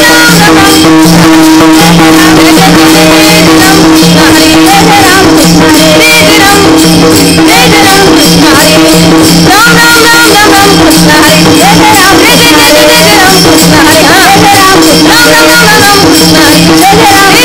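Marathi devotional kirtan music: a woman singing a panchapadi with gliding, ornamented melody over a steady held drone, with continuous percussion strokes.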